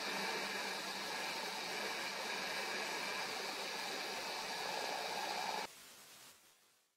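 Steady hiss with a faint hum of several steady tones, which drops abruptly about five and a half seconds in and then fades out.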